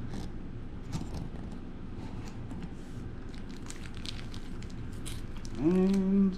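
Plastic-bagged comic books crinkling and tapping lightly as they are handled and shuffled on a table. Near the end comes a man's brief held vocal sound, a steady 'mmm'-like note, louder than the handling.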